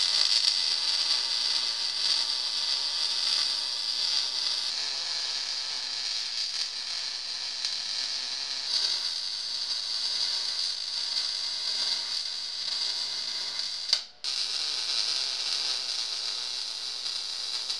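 MIG welding arc on a steel motor mount and frame, a steady hiss. About 14 seconds in it stops for a moment and then restarts.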